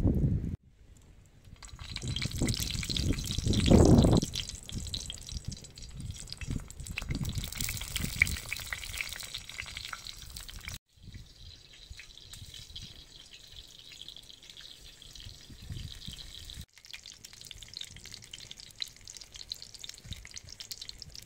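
Halved eggplants sizzling as they fry on a large steel saj pan over a wood fire, a steady hiss broken by a few abrupt cuts. Low rumbles come and go in the first few seconds.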